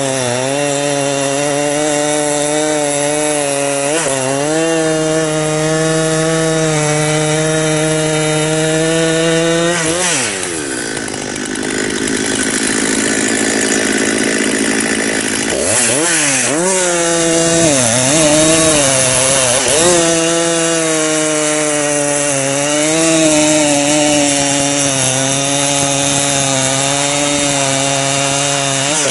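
Husqvarna 394XP two-stroke chainsaw running under load, cutting through a log butt. The engine note is steady, dips and turns rough about ten seconds in, wavers for several seconds, then settles back to a steady pitch.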